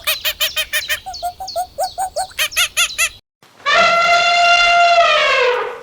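Farm animal calls: a fast run of short, repeated calls, about five a second, then after a brief pause one long held call that drops in pitch as it ends.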